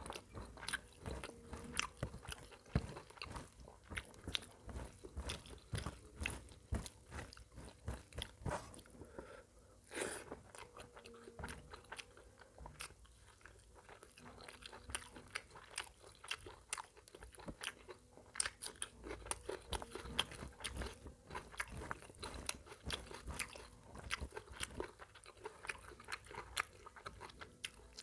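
Close-miked chewing and wet mouth smacking of a person eating mutton curry and rice, a dense run of irregular small clicks and smacks, with the squish of fingers mixing curry into rice on a steel plate.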